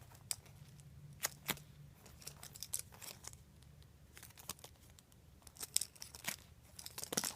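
Handling noise from a foam squishy toy shaped like a cruller as it is turned over and squeezed: faint, irregular crinkles and small clicks, with a slightly louder click near the end.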